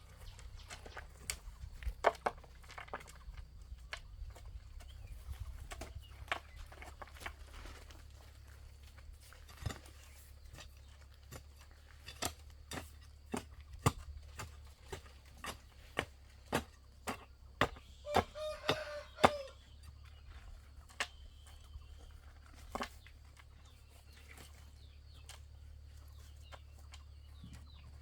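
Scattered sharp knocks and taps, irregular, from some hand work going on. A chicken calls briefly a little past the middle.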